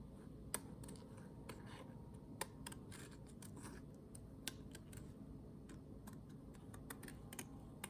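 Scissors snipping through printed paper: faint, scattered sharp snips and clicks a second or so apart.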